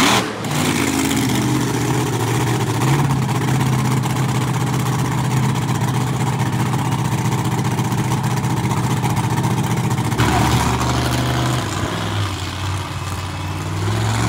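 Monster truck engine running at steady high revs, then dropping lower and revving up and down from about ten seconds in.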